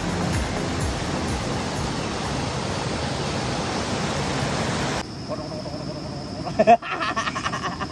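Steady rushing of river water for about five seconds, which then cuts off abruptly. Faint voices follow, with one brief louder sound near the end.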